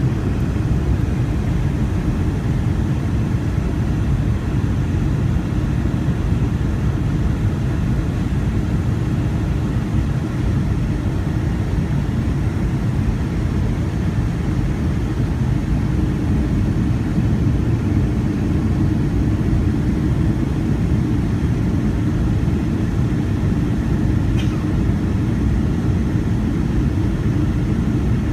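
Steady cabin noise of a Boeing 757-200 in flight on its descent, heard from a window seat beside the wing: a low, even rumble of the engines and the air rushing past the fuselage.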